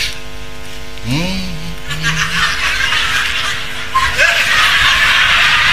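Congregation laughing, building up about two seconds in and loudest near the end, over steady background music; a short vocal sound about a second in.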